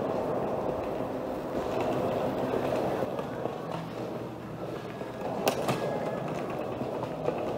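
Cabin noise in a Boeing 737-700 airliner: a steady rumbling and rattling, with one sharp click about five and a half seconds in.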